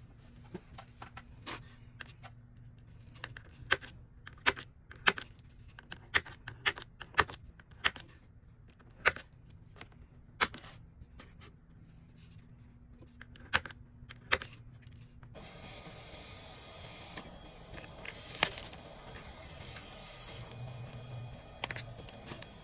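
Irregular sharp clicks and taps of tools working cracked phone back glass loose. About fifteen seconds in, a steady faint hiss begins, with a few more clicks.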